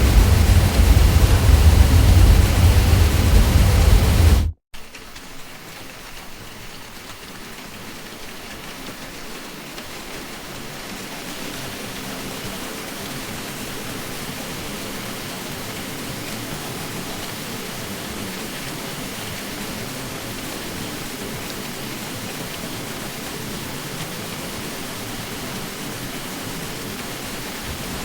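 Ceiling fan drone with a deep low hum. About four and a half seconds in it cuts out for a split second, then comes back as a quieter, thinner hiss without the deep hum, which swells gradually over several seconds and then holds steady.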